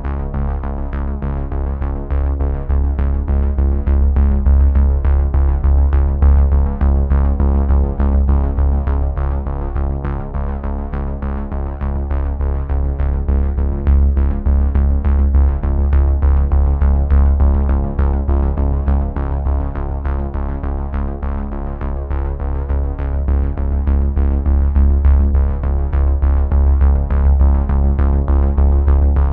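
Upbeat synthesizer background music with a steady beat and strong bass.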